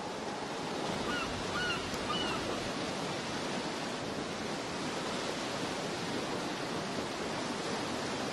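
Steady wash of sea surf, an even rushing noise, with three short bird calls about a second or two in.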